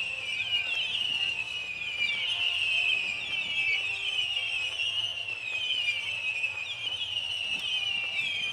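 Many whistling fireworks going off at once: a continuous chorus of short, overlapping shrill whistles, each falling in pitch.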